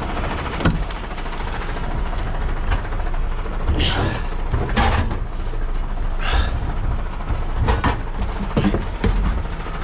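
Idling truck engine running as a steady low rumble, with several sharp knocks and clatters and a couple of brief squeaks over it.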